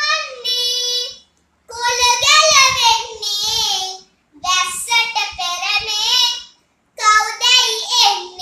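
A boy singing a Sinhala verse unaccompanied, in long phrases with short pauses for breath between them.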